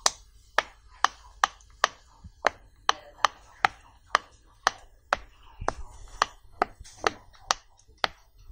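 Silicone pop-it fidget toy having its bubbles pressed in one after another by fingers, each giving a sharp pop, about two pops a second in an even rhythm.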